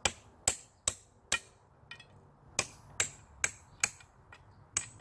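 Hammer blows on the head of a bolt set in the end of a box hockey stick's shaft, driving the broken plastic blade stub up inside the shaft: about eleven sharp strikes, roughly two a second, a few lighter, with a short pause near the middle.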